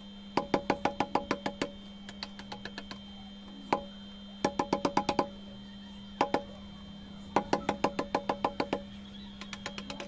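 Hand hammer tapping a small steel chisel to carve a soft paras-stone wall relief: quick runs of light, slightly ringing taps, about seven a second, broken by short pauses and a few single taps. A steady low hum runs underneath.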